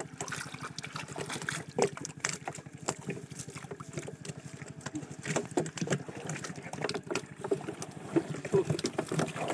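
Water splashing and dripping as a wet fine-mesh fishing net holding fish is handled and shaken out in shallow water, with many small irregular splashes and knocks.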